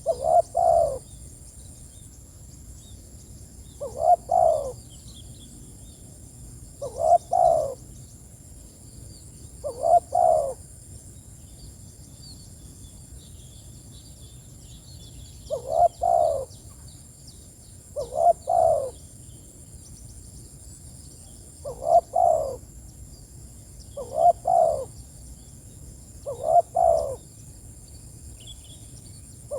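Spotted dove (tekukur) cooing its repeated call phrase, a short low two- or three-note coo, about nine times with a longer pause midway. Faint high chirping of small birds sits underneath.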